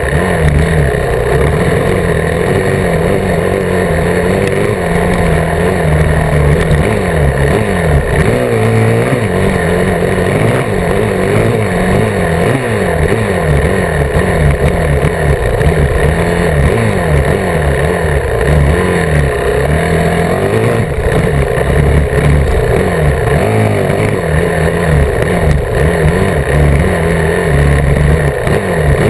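Dirt bike engine running hard along a trail, its pitch rising and falling again and again as the throttle is worked and the bike shifts.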